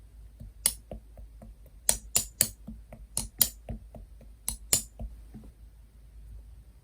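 Lemon cream slime being handled, giving a run of sharp clicking pops, about eight loud ones and several softer ones over some four seconds, stopping about five seconds in.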